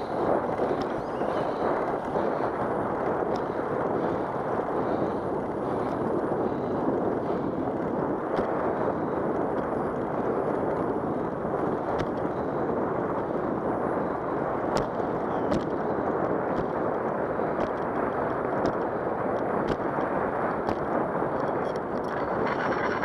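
Steady rushing of wind over the microphone mixed with tyres rolling on a smooth concrete path while riding a bicycle, with a few faint clicks.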